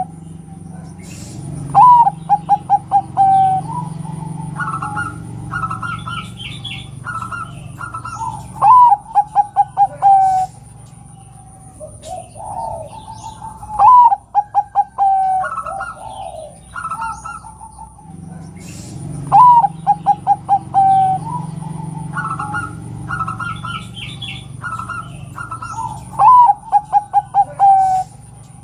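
Zebra dove calling: each phrase is a short rising note followed by a fast run of about seven clipped coos, repeated five times at intervals of several seconds. Softer, higher chirping notes fill the gaps between the phrases.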